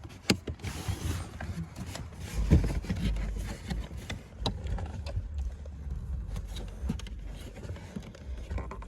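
Scattered clicks and knocks of plastic trim pieces being handled and snapped back into place after a cabin filter change, over a low rumble.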